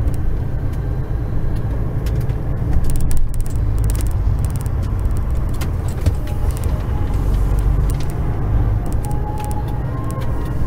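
Truck's engine and road noise heard from inside the cab while driving: a steady low drone with scattered light clicks and rattles.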